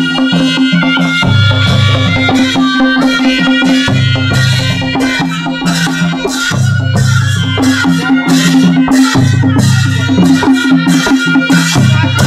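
Nepali panche baja ensemble playing traditional music. Damaha, dholaki and tyamko drums beat a steady rhythm with a deep boom every two to three seconds and quick sharp strokes between, under brass horns holding a steady note.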